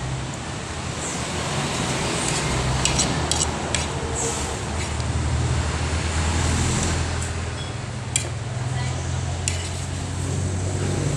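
Steady rumble of road traffic, swelling in the middle as a vehicle passes, with a few short light clicks of a spoon against a plastic plate.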